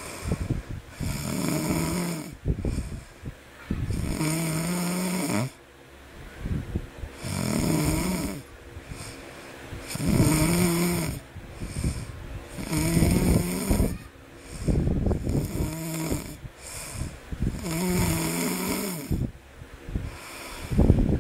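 A baby snoring in slow, regular breaths, with a pitched snore about every three seconds.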